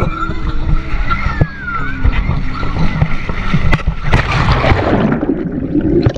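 Water sloshing and splashing close to the microphone, with a heavy low rumble of buffeting and scattered knocks.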